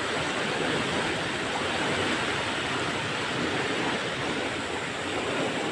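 Seawater from a sea surge rushing across flooded ground in a steady, even roar of turbulent water.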